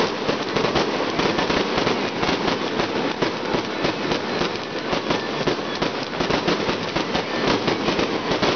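Aerial fireworks going off in quick succession: a dense, continuous run of bangs and crackling pops, many per second.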